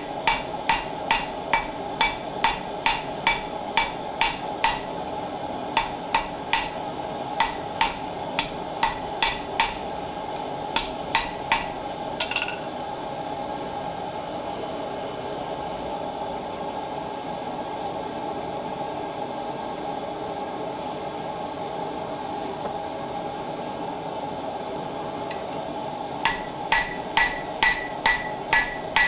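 Hand hammer striking a red-hot O1 tool steel bar on an anvil, about three blows a second in runs. The blows stop from about twelve seconds in and start again near the end. A propane gas forge burner hisses steadily underneath.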